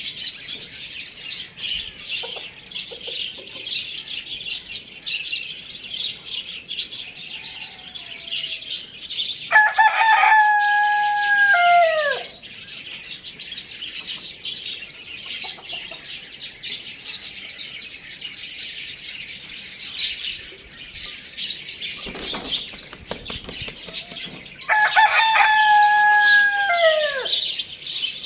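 Rooster crowing twice, each crow about three seconds long: a held note that drops in pitch at the end. Small birds chirp steadily underneath.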